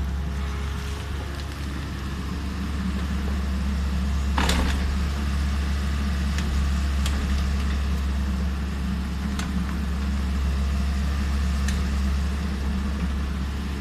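Kobelco 50 excavator's diesel engine running steadily while it digs, with a loud knock about four seconds in and a few short sharp clicks after it.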